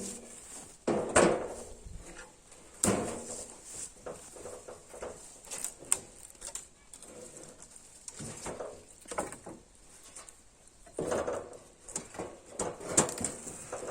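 Irregular knocks and clatter at uneven intervals, with quieter rustling between them; the loudest knock is about a second in.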